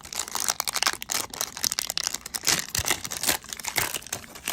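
A pack of 1992 Upper Deck baseball cards being torn open by hand, the wrapper crinkling and tearing in a rapid, uneven run of crackles.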